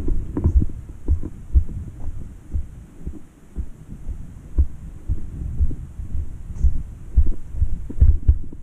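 Footsteps of someone walking briskly downhill on a dirt trail, heard as dull low thumps at about two a second.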